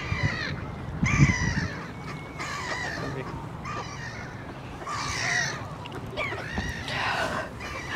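Birds calling in a series of short, harsh calls, about one a second.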